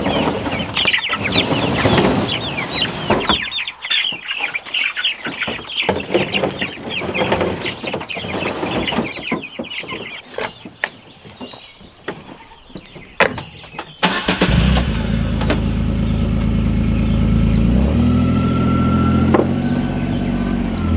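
A crate of meat-bird chicks peeping busily, with a few sharp knocks as the plastic crates are handled. About two-thirds of the way through, a Kawasaki utility vehicle's engine starts and runs steadily, then rises in pitch near the end as it drives off.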